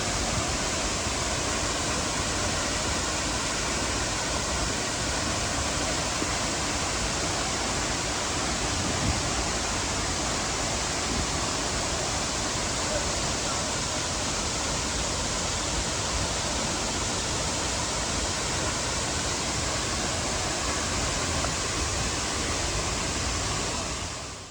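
Waterfall pouring, a steady, dense rush of falling water that fades out near the end.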